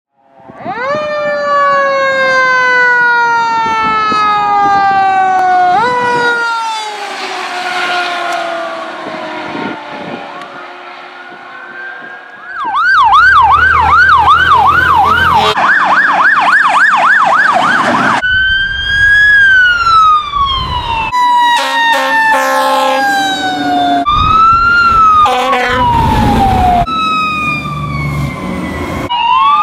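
Fire truck sirens sounding as the apparatus pass, across several clips: long slow falling wails, then a fast yelp, then shorter rising and falling wail cycles.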